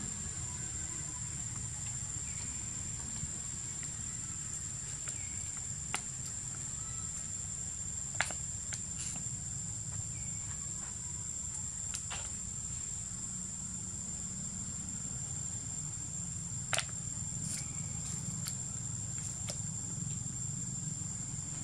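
A handful of sharp clicks and crackles from a plastic water bottle being handled by a pig-tailed macaque, scattered over a steady high insect drone and a low outdoor rumble.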